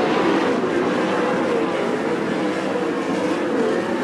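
410 sprint car V8 engines running hard around the dirt oval, the engine note wavering up and down as the cars go through the turns.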